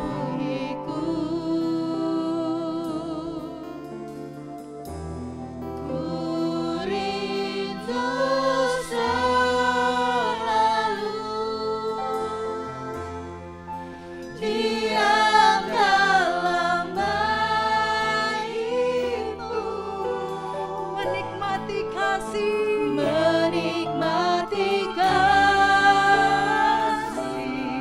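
Christian worship song: singers over instrumental accompaniment, getting louder about halfway through and again near the end.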